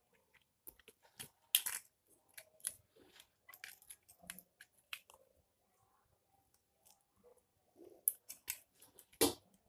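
Plastic toy cap gun being handled: scattered small clicks and rattles of its plastic parts, the sharpest about a second and a half in and near the end.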